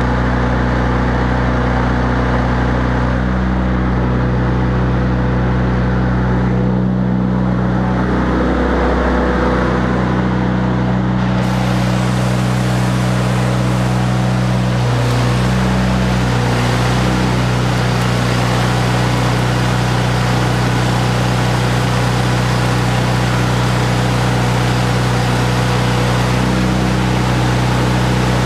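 Engine of a Miller Bobcat 250 engine-driven welder-generator running steadily while powering the welding, a continuous drone whose pitch shifts slightly now and then, with a steady hiss over it.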